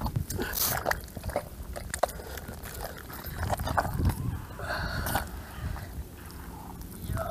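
Wet mud squelching and sucking, with irregular sharp clicks and crackles, as an arm works around inside a muddy eel hole.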